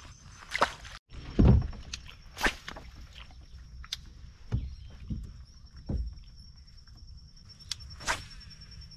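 Scattered dull knocks and thumps, about six spread over several seconds, over a steady high-pitched whine.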